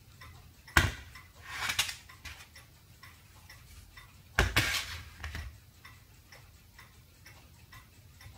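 A plastic license-plate-frame parking sensor is handled over cardboard. There is a sharp knock about a second in, followed by rustling. A louder knock and scrape come at about four and a half seconds. Under it all runs a faint, steady light ticking.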